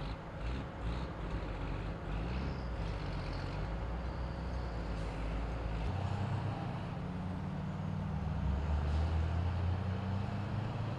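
A flatbed tow truck's engine running steadily, its pitch shifting about six seconds in. There are a few brief hisses in the first three seconds.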